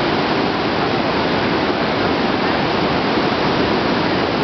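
Water rushing through the open spillway of Cherokee Dam: a loud, steady roar that does not let up.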